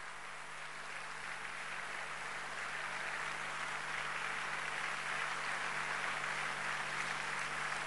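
Audience applauding, swelling over the first few seconds and then holding steady.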